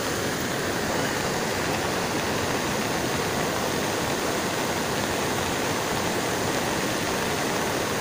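Swollen, muddy mountain river in full flood after heavy rain, rushing past in one steady, unbroken noise of water.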